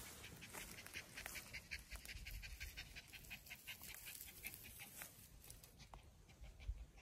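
A dog panting quickly and faintly, about five breaths a second, easing off about five seconds in.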